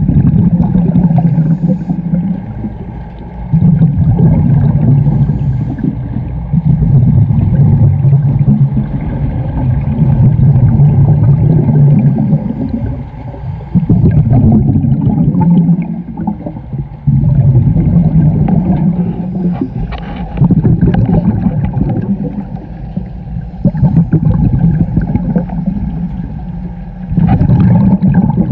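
Scuba diver breathing through a regulator, heard underwater: a low bubbling rush of exhaust bubbles with each exhale, every three to four seconds, with short quieter gaps for the inhale.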